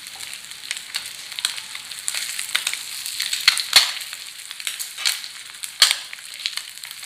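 Masala-coated boiled eggs sizzling and crackling in hot oil in a nonstick frying pan. A spatula and fork knock and scrape against the pan a few times, sharpest a little after three and a half seconds and near six seconds.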